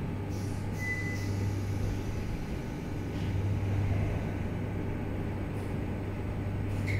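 Madrid Metro CAF 5000 series (4th subseries) train car braking to a stop at a station, heard from inside the car: a steady low hum over rolling rumble, with a brief high squeal about a second in.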